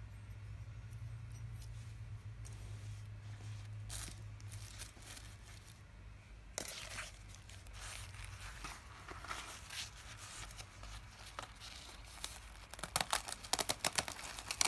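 Plastic wrapping and a cloth drawstring pouch crinkling and rustling as they are handled, with scattered small clicks that come thick and sharp near the end. A low steady hum sits under the first half and fades out.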